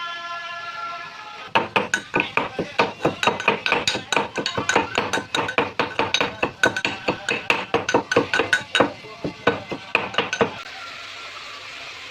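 Rapid, irregular knocking and clinking of a kitchen utensil being struck, about four to five hits a second, lasting about nine seconds, then stopping suddenly.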